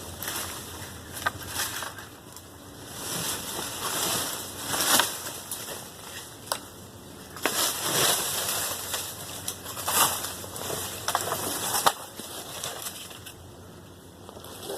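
Tree branches being trimmed and cleared: irregular crunching and rustling of brush and branches, with a few sharp snaps.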